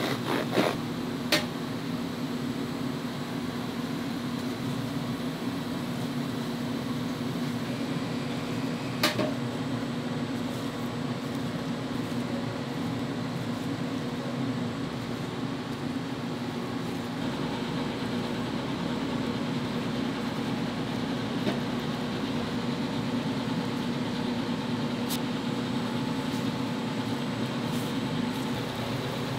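Steady hum of commercial kitchen ventilation fans, with a few sharp clicks and knocks of utensils and equipment.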